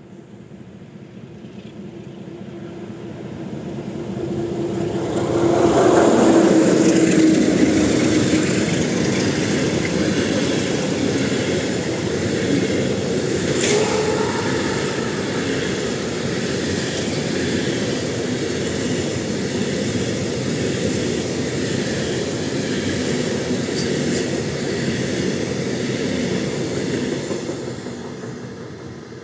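Freight train hauled by a Sulzer diesel locomotive passing close by: the locomotive's engine swells to its loudest about six seconds in, then a long string of freight wagons, empty container flats among them, rolls past with a steady rumble and wheel clatter. One sharp clank about midway, and the sound fades as the last wagons pass near the end.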